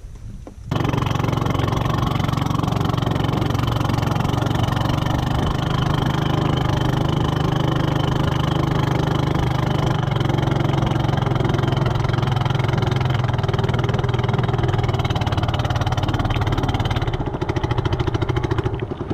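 Boat engine of a narrow wooden longboat running steadily under way at speed, a loud low drone. It starts abruptly about a second in and turns choppy near the end.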